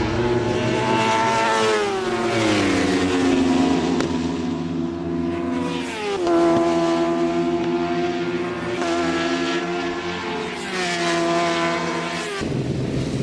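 Racing motorcycle engines at high revs, the pitch dropping twice as the bikes brake and shift down, holding steady, then climbing again before cutting off suddenly near the end.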